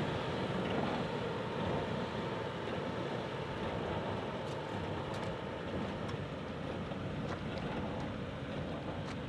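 Toyota 4Runner's V6 and drivetrain running as the SUV crawls slowly backward out of a mud rut in reverse under crawl control. It is a steady, noisy drone that fades slightly as the truck moves away.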